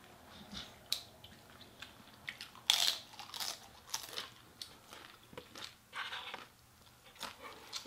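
Eating sounds of two people biting into and chewing crispy fried chicken wings: irregular crisp crunches and wet chewing, the loudest crunch a little under three seconds in.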